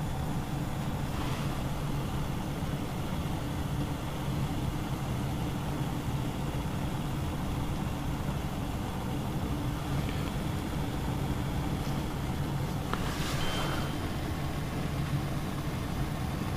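Steady low rumble of a pot of water heated on a stove to just short of the boil, with small bubbles rising, as a car thermostat is tested for its opening temperature.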